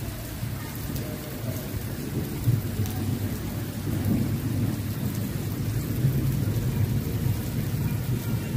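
Heavy rain pouring down onto standing water and concrete in a flooded courtyard, a dense steady hiss, with a continuous low rumble underneath.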